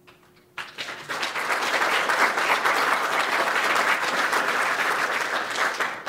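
Audience applauding. The clapping starts about half a second in, builds to full strength within a second, holds steady, and begins to die away at the very end.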